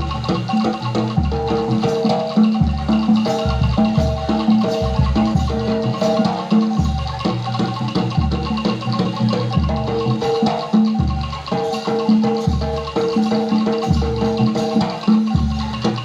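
Javanese gamelan music accompanying a jaranan dance: metal-keyed instruments play a repeating melody over regular low drum strokes, roughly one every second and a half.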